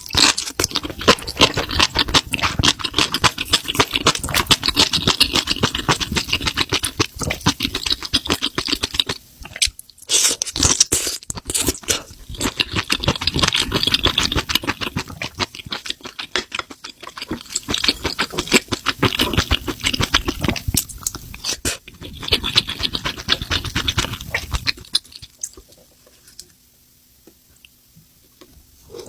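Close-miked chewing of spicy mushrooms: dense, rapid mouth clicks in long bursts with a few short breaks, going quiet for the last few seconds.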